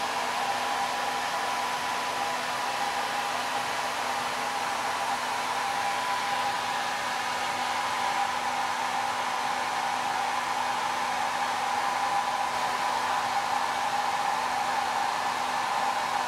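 Handheld hair dryer running steadily, a constant rush of air with a steady motor whine.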